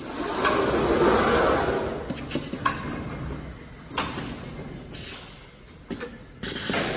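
Jug palletizer's overhead gripper lowering a plastic jug onto the stack and releasing it: a mechanical whir of travel, then sharp clicks about three and four seconds in.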